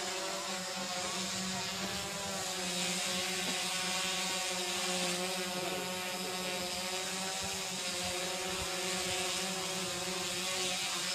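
Police quadcopter drone's propellers buzzing steadily in flight, a hum of several pitches at once with a slight waver.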